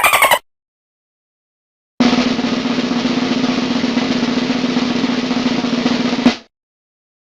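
Snare drum roll sound effect, a fast even roll lasting about four seconds and ending in one sharp hit. Just before it, the tail of a falling, rapidly pulsing tone cuts off, followed by a second or so of silence.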